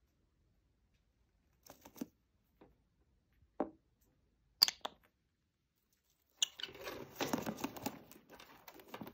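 A lovebird rustling in shredded paper and chewed cardboard on the cage floor: a few short crackles, then about two and a half seconds of denser crackling near the end.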